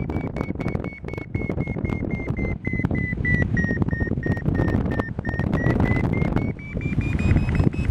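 Paragliding variometer beeping, about three short beeps a second, its pitch sagging a little around the middle and then rising toward the end as the climb strengthens. Heavy wind noise on the microphone rumbles underneath.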